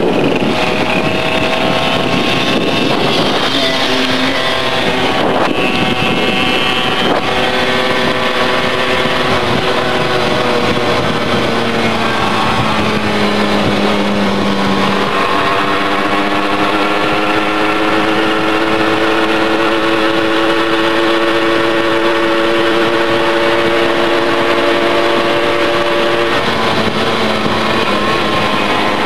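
Small moped engine running under way, its whine sliding up and down with speed and rising slowly through the second half before dropping back near the end, over wind rushing past the microphone.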